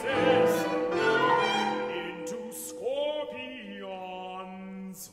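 Chamber orchestra playing contemporary classical music: long held notes and several notes that slide upward in pitch, gradually growing quieter.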